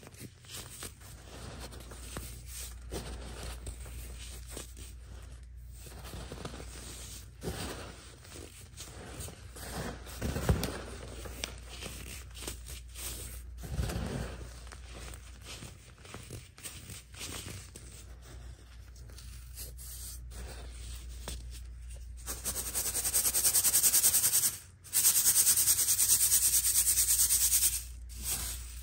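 Dried baking soda chunks being squeezed and crumbled between fingers over a metal mesh strainer: dry, crunchy crackling and powdery rubbing. About three-quarters of the way in, a loud steady hiss starts and runs for about six seconds, breaking off briefly once.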